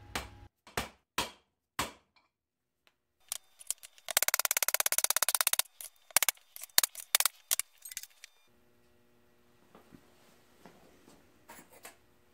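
Sharp hammer blows on a bearing driver, seating a bearing in the bearing plate of a 6-71 blower until it bottoms out against the shoulder. There are four knocks at the start, then a fast rattle of clicks for about a second and a half around the middle, then another run of knocks before it goes quiet.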